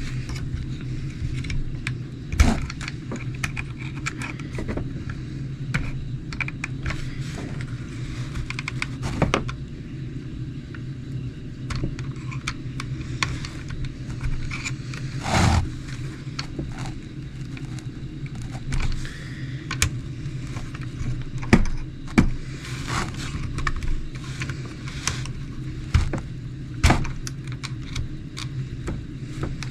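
Irregular clicks, taps and light rattles of small plastic and metal parts of an RC truck's axle and wheel hub being handled and fitted back together, over a steady low hum.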